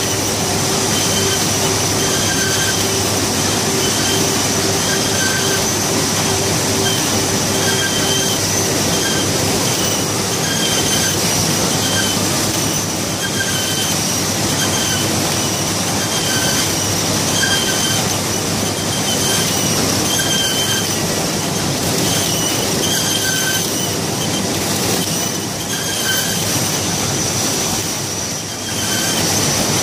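Codimag Viva 340 label printing press running: a steady mechanical clatter with a high whine, and short squeals recurring about once a second.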